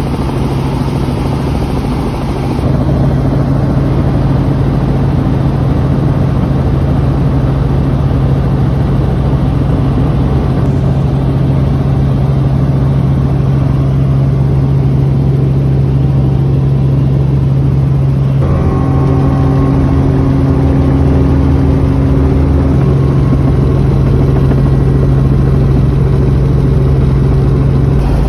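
Helicopter engine and rotor drone heard inside the cabin, loud and steady with a deep hum. A few higher whining tones join about two-thirds of the way through as the helicopter descends towards its landing pad.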